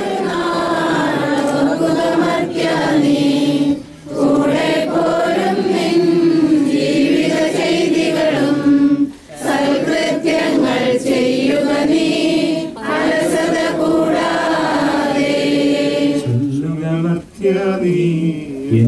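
A group of voices singing a slow hymn in long held phrases with short breaks between them. Near the end a lower man's voice comes in, chanting.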